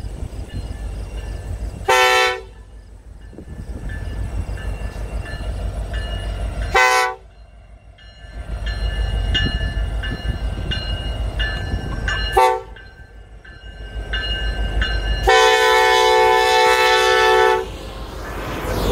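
Diesel freight locomotive's air horn sounding the grade-crossing signal: two blasts, a brief one, then a long one held about two seconds. The train rumbles steadily underneath as it approaches.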